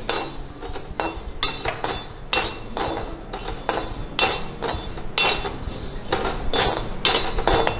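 Perforated steel ladle scraping and clinking against a steel kadai as it stirs dry lentils and coriander seeds roasting without oil, the grains rattling on the metal. The strokes come in uneven repeated scrapes, roughly two a second.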